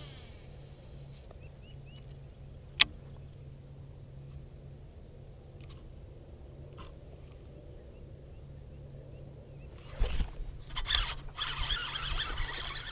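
A baitcasting rod and reel being handled: one sharp click about three seconds in over a quiet, steady low hum. From about ten seconds in come thumps and rustling as the rod is swung into a cast.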